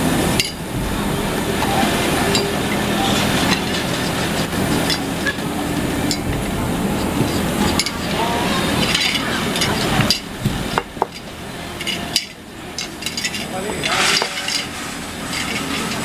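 Factory workshop noise: a steady machine hum and hiss, with occasional clicks and clinks of stainless steel recessed drawer pulls being handled on the workbench.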